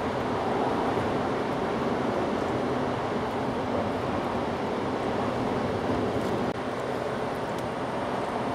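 Steady outdoor background noise: a dense, even rumbling hiss with no distinct events, dipping slightly about six and a half seconds in.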